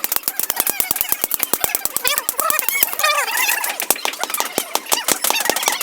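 Hammer blows on hot steel over an anvil in rapid succession, several ringing strikes a second, as a knife blade is forged.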